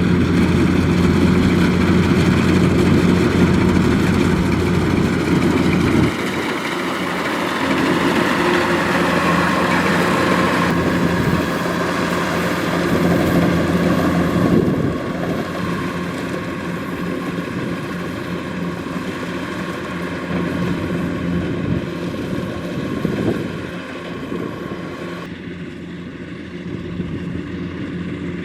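Kubota DC-105X combine harvester's diesel engine running with a steady drone. Its sound changes abruptly several times, losing its deepest hum about six seconds in, and it drops in loudness near the end.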